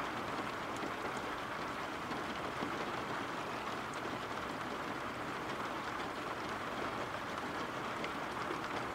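Steady rain ambience: an even, unbroken hiss of rainfall.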